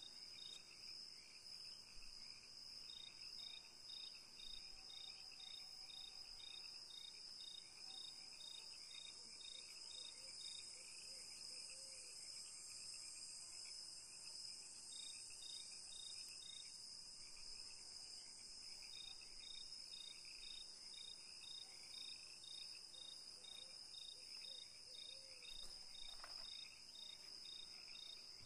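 Faint cricket chirping: a steady train of evenly spaced high pulses at one pitch, over a soft high hiss.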